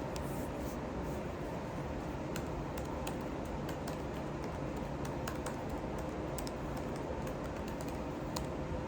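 Computer keyboard typing, irregular light key clicks over a steady background hum.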